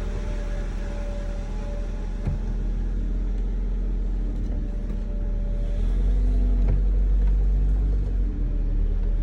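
1991 Acura Integra LS's 1.8-litre four-cylinder engine running as the car is reversed: a steady low hum that grows louder about six seconds in, with a couple of light knocks.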